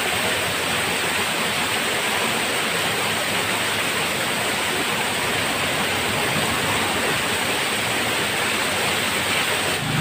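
Small waterfall pouring steadily onto rocks and into a shallow pool: an even, unbroken rush of falling water.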